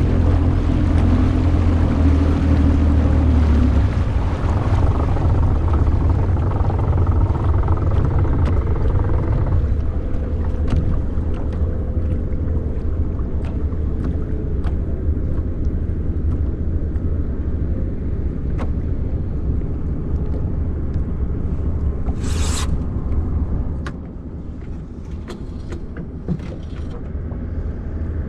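Small outboard motor running on a Gheenoe under way across the water, a steady low drone that eases back about four seconds in and drops quieter again near the end. A brief hiss sounds shortly before the drop.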